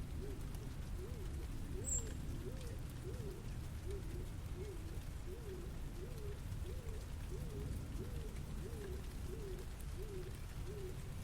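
A bird calling a steady run of short cooing notes, each rising and falling, about two a second. Under it runs a constant low city rumble.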